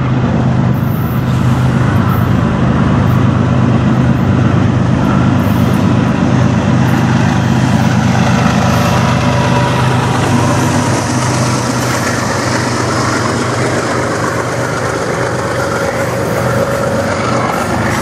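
Two CN diesel locomotives pass close by under power at the head of a freight train. The steady low drone of their engines is loudest through the first half, then gives way to the even noise of the freight cars rolling past on the rails.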